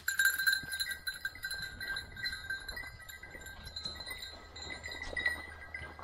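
A bird dog's collar bell ringing steadily as the dog runs, with soft footsteps in dry leaves.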